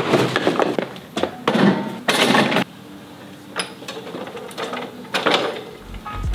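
Cardboard and hard plastic scraping and knocking as a plastic folding table is slid out of its box, loud for the first two seconds or so. Then it goes quieter, with a couple of light clicks as the table's metal legs are swung open.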